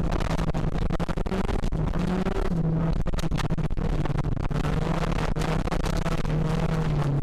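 Citroen Xsara VTS's 2.0 16V four-cylinder engine held at high revs under full throttle, heard from inside the cabin, dipping briefly in pitch a little over two seconds in and starting to drop near the end. Gravel rattles and clicks against the car throughout.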